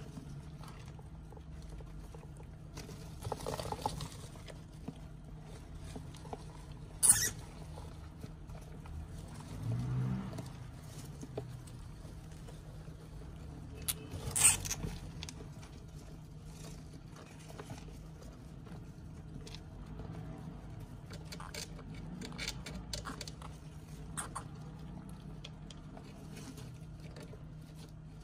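Dwarf hamsters scurrying and rummaging through wood-shaving bedding: a faint, continuous rustling and scratching. Two sharp clicks stand out, about a quarter of the way in and again halfway through.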